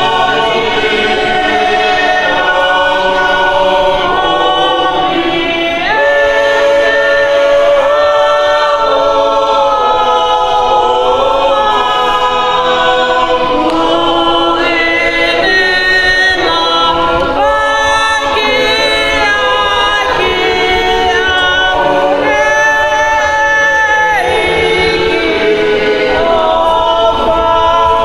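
Choir singing a cappella in slow, held chords that shift every second or two.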